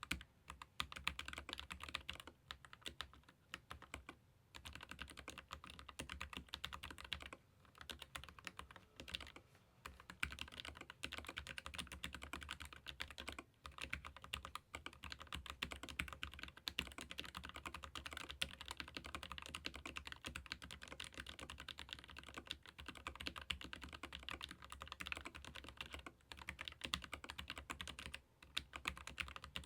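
Keychron K15 Pro Max ergonomic mechanical keyboard with Gateron low-profile red linear switches being typed on steadily: a fast, continuous patter of key clacks broken by a few brief pauses.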